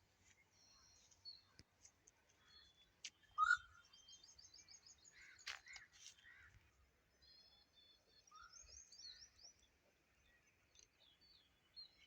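Several wild birds calling faintly: short sharp calls, with two rapid runs of high repeated notes, one about four seconds in and one about seven seconds in.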